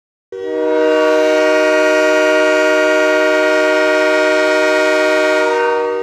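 Kahlenberg K5LA five-trumpet air horn sounding as an ice-hockey goal horn, the signal for a goal: one long steady chord of several notes, starting about a third of a second in and held for more than five seconds, with added reverb.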